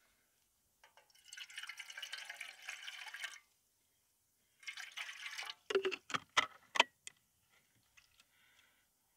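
Water being poured into a pot in two spells, followed by about six sharp knocks from the pot being handled.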